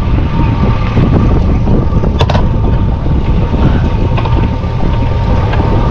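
Wind buffeting the microphone on a small boat on the water, a dense low rumble, with a thin steady tone running underneath. One sharp click about two seconds in.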